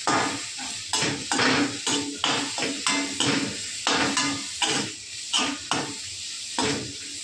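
Metal slotted spoon scraping and clinking against a metal kadhai as an onion-tomato masala is stirred, in repeated irregular strokes about two a second, over a steady sizzle of frying.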